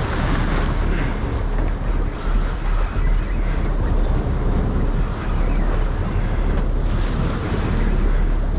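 Wind buffeting the microphone over the rush and splash of water along the hull of a small boat under way, with a steady low rumble underneath.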